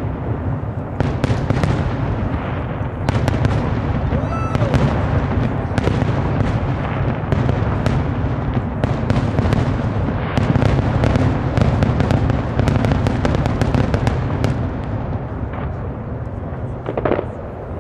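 Fireworks display: many shells bursting in rapid succession, dense crackling and popping over a continuous low rumble, thinning out and getting quieter near the end.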